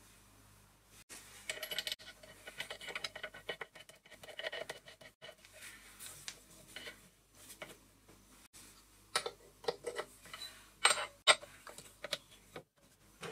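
Small metal tooling being handled: irregular clinks, clicks and light scraping as a spotting drill is fitted into the mill's spindle collet, with a few sharper metallic clicks about nine to eleven seconds in.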